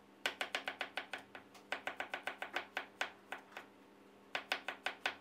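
Chef's knife chopping garlic and chillies on a wooden cutting board: quick, sharp knocks of the blade on the board, several a second, in short runs broken by brief pauses.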